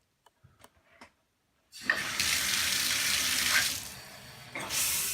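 A few faint clicks, then about two seconds in the bathtub water is turned on and runs hard and steady. The rush drops away briefly near four seconds in and then comes back at full flow.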